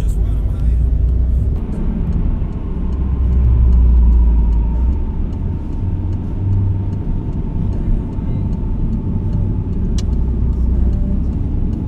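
A five-seat gasoline car driving in traffic, heard from inside the cabin: a steady low rumble of engine and tyres that swells a little a few seconds in. A single sharp click sounds near the end.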